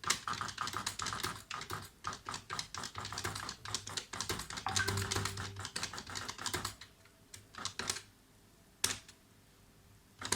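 A Brother EP-20 electronic typewriter typing: a fast run of key presses and print-head clicks for about seven seconds, then a few single clicks.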